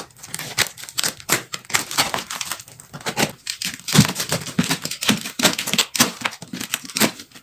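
Packing tape and cardboard being torn and pulled off a parcel by hand: a quick, irregular run of crackles and rips.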